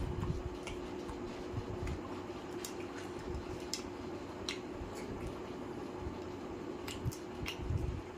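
Wet eating sounds from chicken curry and roti eaten by hand: irregular sharp smacking clicks and soft squishes of mouth and fingers in the curry.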